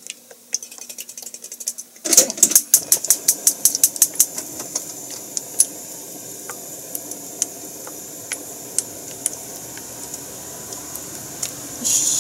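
Marinated chicken pieces for karaage going into hot frying oil about two seconds in, setting off a sudden sizzle with dense crackling pops that settles into a steady sizzle with scattered pops. A louder burst of sizzling comes near the end.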